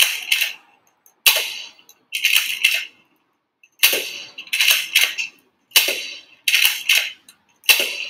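Nerf Mega Cycloneshock foam-dart blaster being primed and fired over and over: a string of sharp clacks, roughly one every half second to second, each with a short fading tail.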